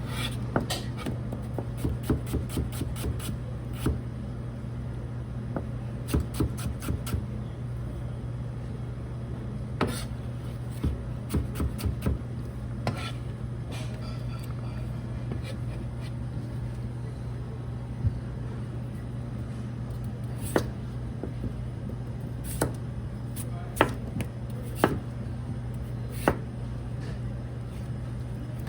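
Knife striking a cutting board while food is cut: irregular sharp clicks, in quick runs of taps during the first dozen seconds, then single knocks a second or more apart. A steady low hum runs underneath.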